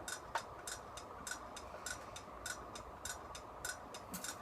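Steady, faint ticking: light clicks at an even pace of about three a second.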